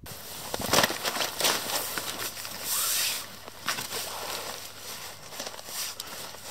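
Wet landing-net mesh and unhooking mat rustling and sloshing as hands handle a carp in the net, with irregular sharp clicks and a louder burst of rustling about three seconds in.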